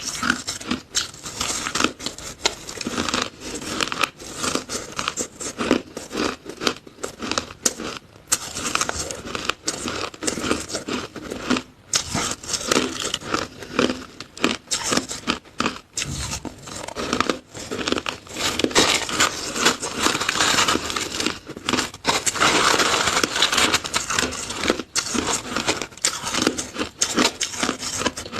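Close-up crunching and chewing of purple-flavoured shaved ice: a dense, irregular crackle of bites, busier in the second half.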